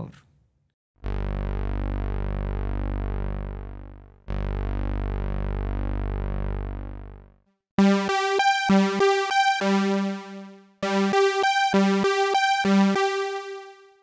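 Analog synthesizers: two long, low held notes, each fading away. Then, about eight seconds in, a quick arpeggio of short, clipped notes in two phrases: the Moog Grandmother's arpeggiator sent over MIDI to a microKorg.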